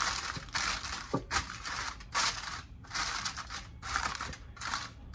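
Heavy-duty aluminium foil crinkling as hands press and crimp it down over the rim of a baking dish, in a run of irregular crackly bursts about two a second.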